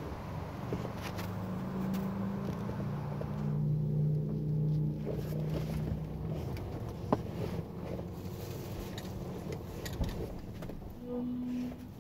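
Touchless spray car wash heard from inside the car's cabin: water and soap spraying over the body and windows, with a low machine hum for the first few seconds and a couple of sharp knocks later on.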